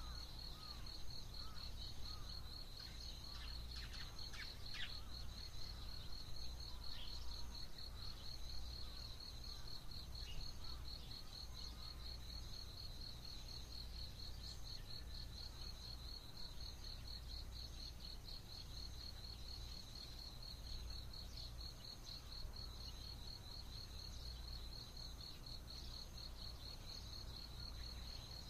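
Early-morning outdoor ambience: an insect trills steadily on one high, rapidly pulsing note. A few short bird calls and chirps come in the first several seconds, over a low background rumble.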